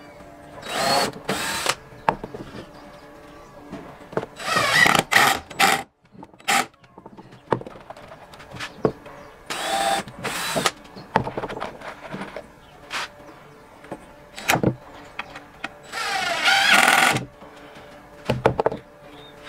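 DeWalt cordless drill driving screws into a wooden frame in a series of short runs, each lasting up to about a second, with the motor pitch rising as each run starts.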